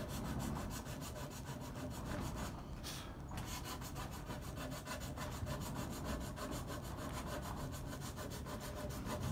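Triangular rasp drawn along the dovetail track of a dogsled's quick-change runner in rapid, even strokes, with a short break about three seconds in. It is dressing down rough, damaged sections of the dovetail so that new runner plastic can slide on.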